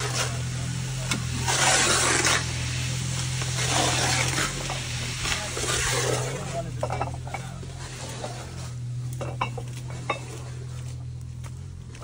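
Soroto forced-action mortar mixer running: a steady motor hum with the paddles scraping and churning the mix. The churning is loudest in the first few seconds and thins to scattered clicks and scrapes later.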